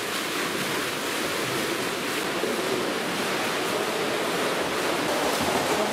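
Several swimmers doing front crawl in a pool: a steady wash of splashing water from their arm strokes and kicks.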